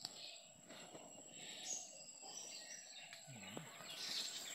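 Faint outdoor ambience with birds chirping now and then.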